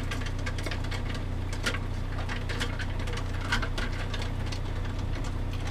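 A spoon stirring an iced mocha in a clear plastic tumbler, with irregular clicks and rattles as it knocks against the coffee ice cubes and the cup wall. A steady low hum runs underneath.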